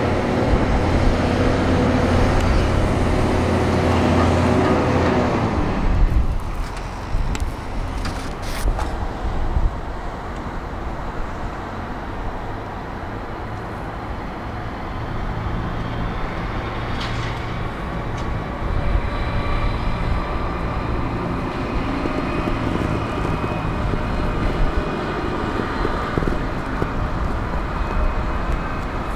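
Large excavator's diesel engine running, loud for the first six seconds and then easing to a lower level. A few sharp knocks come about seven to nine seconds in, and a thin steady whine sits over the engine through the second half.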